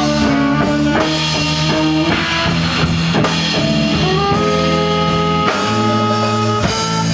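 Blues band playing an instrumental passage: guitar over a drum kit, with a high note sliding up and held from about four seconds in.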